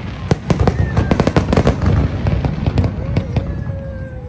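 Fireworks going off: a rapid run of sharp pops and bangs, densest about one to two seconds in, with a faint falling tone near the end.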